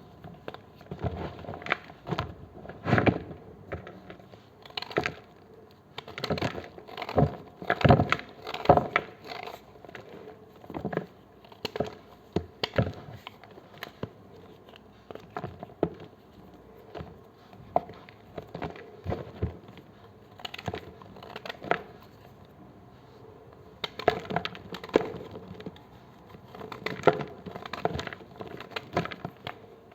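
A knife cutting through blocks of gym chalk, making crisp crunches one after another in irregular clusters with short pauses between.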